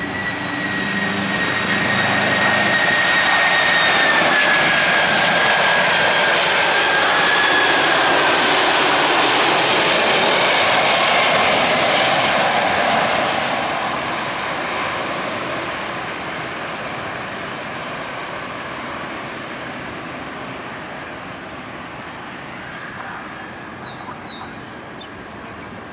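Boeing 747-400 freighter's four turbofan engines on final approach, passing low overhead: a loud jet roar that swells over the first few seconds, with a high whine that slides slowly down in pitch. The roar then fades steadily as the aircraft moves away.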